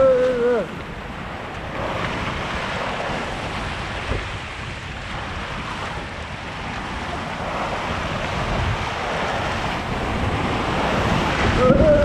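Rushing water and wind buffeting the microphone during a ride down a water slide, with a short shout at the start and another near the end.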